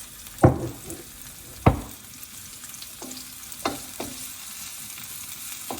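Chili and garlic sizzling in hot oil in a wok while being stirred, with a utensil knocking against the wok: two loud knocks in the first two seconds, then a few lighter ones.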